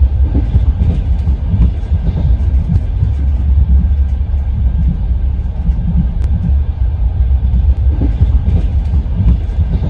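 Train wheels running on the rails: a steady low rumble of the wheels with a few light clicks.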